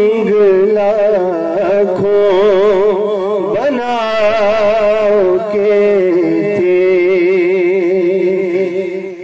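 A man singing a long, drawn-out phrase of an Urdu naat into a microphone, with wavering melismatic ornaments, over a steady low drone. The voice fades away near the end.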